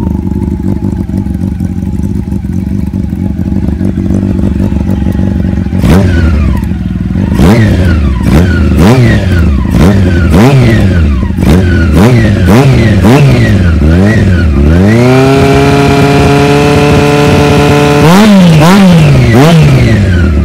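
Honda CBR400 inline-four engine through a LeoVince aftermarket muffler. It idles steadily for about six seconds, then is revved in a string of quick throttle blips, held at high revs for about three seconds, and blipped three more times before dropping back toward idle.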